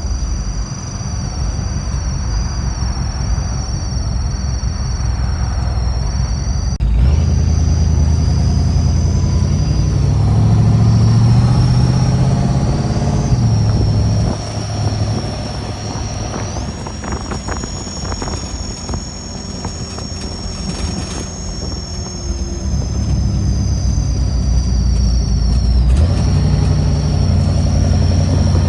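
Steady low vehicle rumble with a thin high whine over it, changing abruptly three times.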